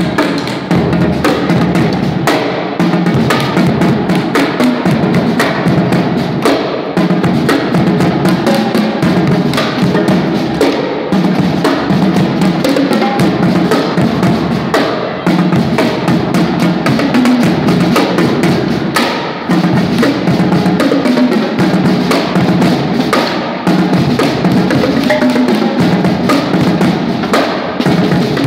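Marching drum corps playing a loud, fast drum cadence of many quick, closely packed strokes.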